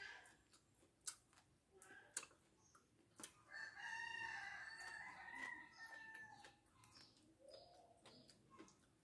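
A rooster crowing once, a single long call about three seconds in, with a few faint clicks around it.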